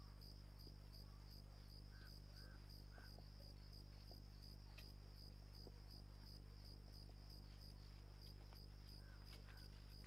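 Faint crickets chirping in a steady pulsing trill, over a low steady hum.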